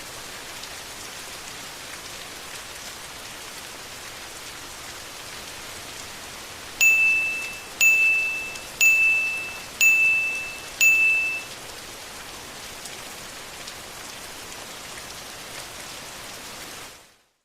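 Steady rain, with a timer alarm sounding five short ringing beeps about a second apart, signalling the end of the timed period. The rain fades out just before the end.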